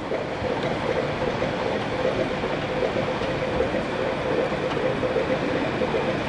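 Small saddle-tank steam locomotive moving slowly: a steady hiss and rumble, with no distinct exhaust beats.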